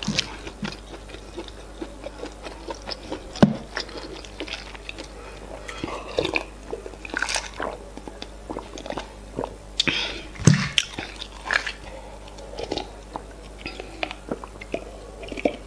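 Close-miked ASMR eating sounds: wet chewing of efo riro and semolina fufu, with many small mouth clicks. Later come sips and swallows from a glass of iced water. Two louder knocks fall about three and a half seconds and ten and a half seconds in.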